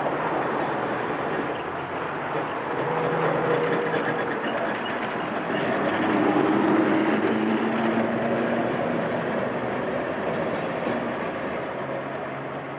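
A 900-series Perley Thomas streetcar passes close by, its wheels rumbling on the rails with a faint whine. The sound grows louder to a peak about six seconds in, then fades as the car moves away.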